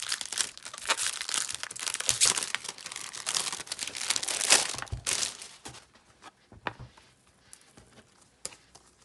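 Thin plastic shrink-wrap crinkling and tearing as it is peeled off a CD album, dense for about the first five seconds. After that only a few soft clicks and taps from handling the album as it is opened.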